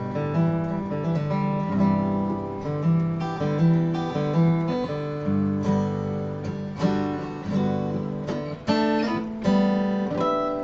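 Acoustic guitar strummed in a slow chord progression, each chord ringing on, with a fresh strum about once a second.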